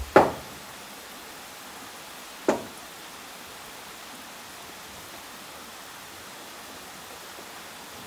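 Two sharp knocks, about two seconds apart, the first the louder, over a steady hiss.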